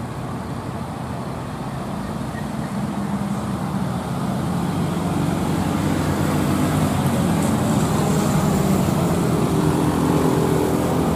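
Diesel engine of a loaded Mitsubishi Fuso Canter dump truck pulling up a steep hill at a steady pitch, growing louder as the truck approaches, mixed with passing car traffic.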